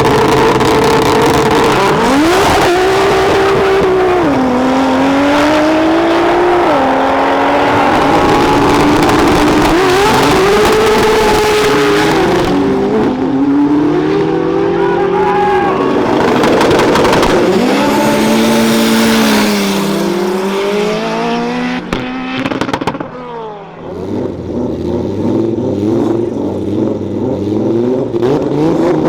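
High-powered tuned cars accelerating hard down a drag strip, the engine note climbing and dropping back with each gear change, run after run. Near the end the sound dips and a lower, steadier engine note takes over.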